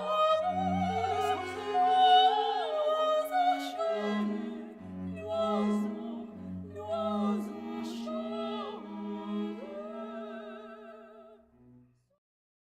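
Operatic singing with vibrato over an orchestral accompaniment, fading out near the end into silence.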